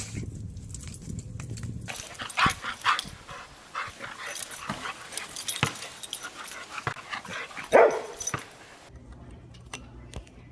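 A run of short bark-like calls and yelps over several seconds, the loudest about eight seconds in, between stretches of low steady hum.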